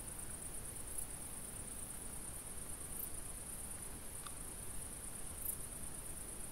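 Crickets trilling in a continuous high-pitched chorus, swelling slightly now and then, with a faint click a little after four seconds in.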